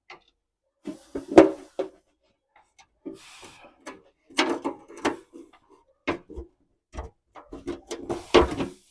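Irregular metal clanks, knocks and scraping as exhaust pipe, hanger bracket and muffler are worked and forced into place under a car. The loudest knock comes about a second and a half in.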